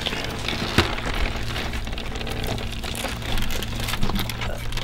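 Rustling and crackling of a woven mat door covering and wooden pole being pulled aside to open a bark-and-veneer lodge, with a sharper click about three-quarters of a second in.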